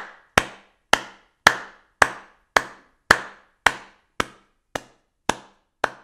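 Sharp knocks repeating at an even, slow pace of about two a second, each with a short ringing tail, a little softer in the second half.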